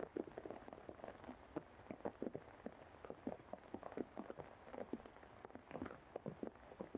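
Rain falling, with single drops tapping irregularly and close by, several a second, over a faint steady hiss.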